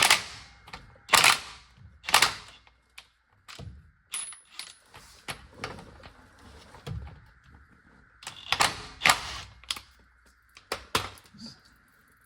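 Impact wrench fired in about six short bursts on the transfer case fill plug of a 1997 Toyota Tacoma to break it loose, with lighter clicks and clinks of tools between the bursts.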